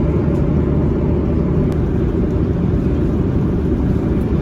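Steady low cabin rumble of a Boeing 737-800 in flight, from its engines and the airflow over the fuselage.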